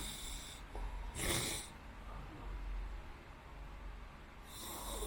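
A sleeping person's noisy breathing: an airy breath at the start, a louder one about a second in, and another near the end.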